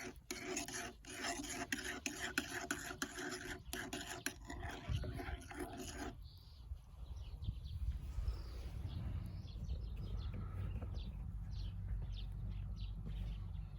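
Steady rasping, rubbing scrape that stops abruptly about six seconds in. After it, a low rumble with birds chirping.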